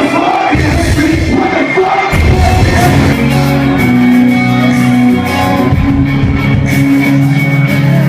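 Loud live concert music with a vocalist, heard in a large hall. A heavy, sustained bass comes in about two seconds in.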